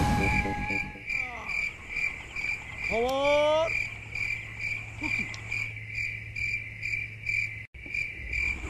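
Crickets chirping in a steady, evenly pulsed night chorus, about three chirps a second, as music fades out about a second in. A short rising call sounds about three seconds in.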